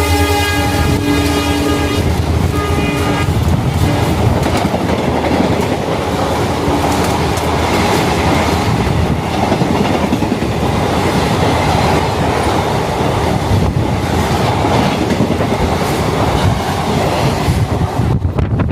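Brahmaputra Mail's locomotive horn ends a long blast about three seconds in. The express then runs through at full speed: a steady rush of wheels on rails with rapid clatter from the coaches, which thins out near the end.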